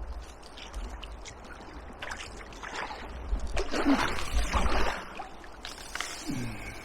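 Kayak paddle strokes dipping and splashing in the water, with drips and trickling off the blade; the splashing is louder for a couple of seconds in the middle.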